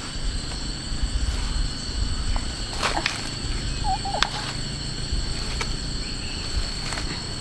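Steady high-pitched insect drone over a low rumble, with a few sharp clicks and a short wavering call about four seconds in.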